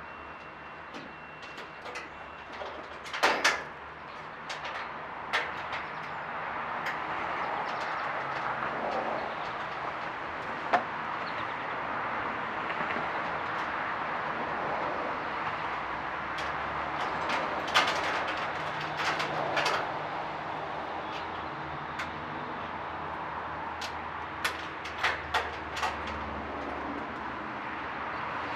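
Scattered knocks and clanks from hands-on work hanging a window evaporative cooler, over a steady outdoor hiss. A sharp double knock comes about three seconds in and a quick run of knocks near the end.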